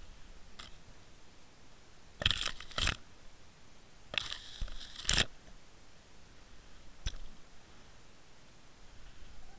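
Two bursts of scraping and crunching against the housing of a Water Wolf underwater fishing camera, about two seconds in and again from about four to five seconds in, as kelp brushes across it. A few faint ticks sound between them.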